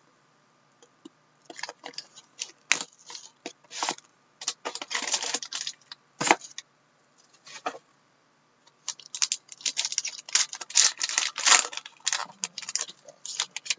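Plastic shrink wrap and packaging crackling and crinkling in quick clusters as a sealed Upper Deck Ultimate Collection hockey card box is unwrapped and its pack handled, with a lull of about two seconds in the middle.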